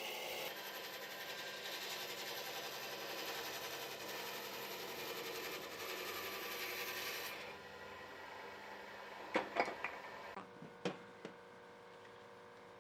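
Steady abrasive rubbing on wood, like sanding or rasping by hand, for about seven seconds before it stops, followed by a few light knocks and clicks.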